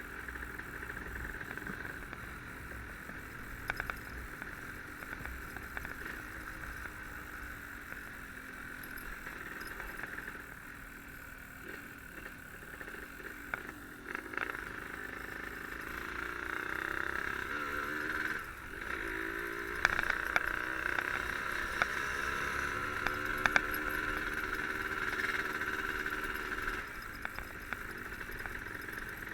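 Yamaha RD135 two-stroke motorcycle engine running on the move, its pitch rising and falling with the revs. It gets louder about halfway through, with a few sharp knocks near the end.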